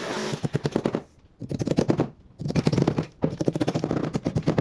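A power tool running in four bursts of about a second each, each burst a fast, even rattle of impacts, with short pauses between them.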